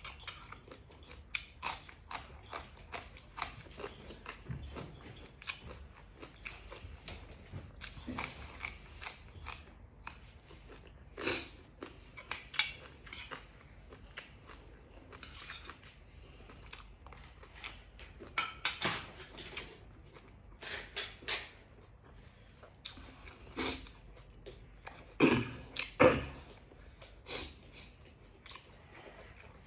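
A person chewing and biting close to the microphone, with irregular crisp crunches of raw vegetables eaten with nam tok moo (spicy grilled-pork salad). The loudest crunches come near the end.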